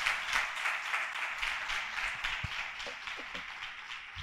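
Audience applauding: many hands clapping in a dense, steady patter that begins to thin out near the end.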